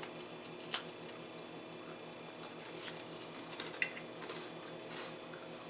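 A few faint clicks and crunches as a cookie is bitten and chewed and a metal spoon works in a clay mug of atole, over a steady low hum.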